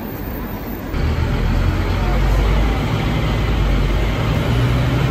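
Street traffic noise, then about a second in the low, steady drone of a Scania N310UA articulated bus's diesel engine heard from inside the passenger cabin, running at idle or low revs.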